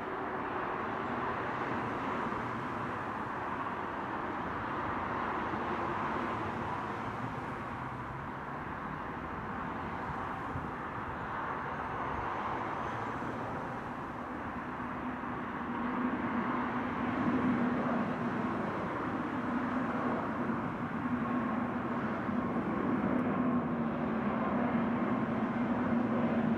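Airbus A320neo's Pratt & Whitney PW1100G geared turbofans at takeoff thrust as the airliner lifts off and climbs out: a steady jet roar. About halfway through it grows louder and a low steady hum comes in as the aircraft climbs nearer.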